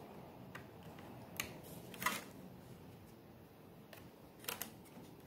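Faint, scattered clicks and taps of small plastic parts being handled: fingers and a pry tool working the latch of a ribbon-cable connector inside an opened laptop, with a couple of clicks close together near the end.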